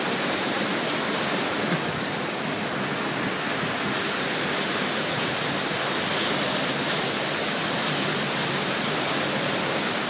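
Heavy surf: a steady roar of breaking waves, with no single crash standing out.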